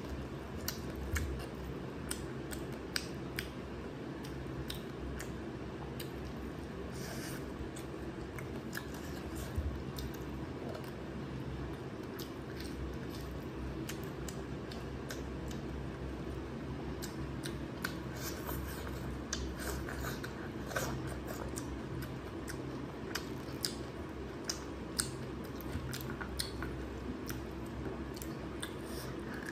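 Eating sounds of someone eating rice and mutton curry by hand: chewing, with short irregular clicks and smacks throughout, over a steady low background hum.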